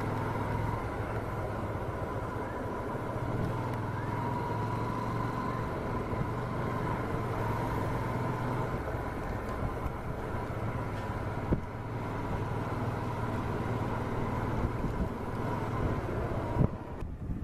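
Motorcycle engine running steadily while riding along a road, with a constant high whine over the engine's low note.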